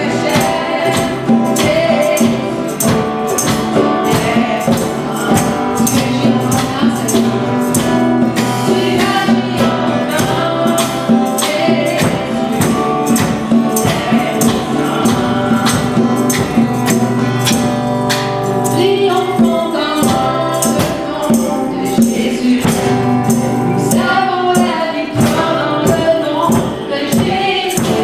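Live church praise band playing: women singing over acoustic guitar, with a tambourine struck steadily on the beat.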